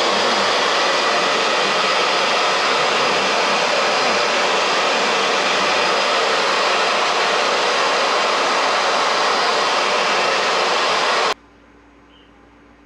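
Heat gun blowing with a steady, loud rush of hot air, used to warm vinyl dirt-bike graphics; it switches off abruptly about 11 seconds in.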